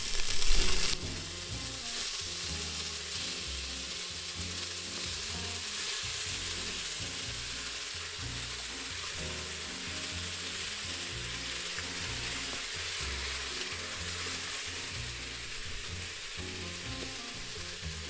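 Seasoned beef bones sizzling in hot oil with onion, garlic and seasoning peppers in a stainless steel pressure cooker pot, turned with tongs to brown. The sizzle flares loudest in the first second as the bones go in, then settles to a steady sizzle.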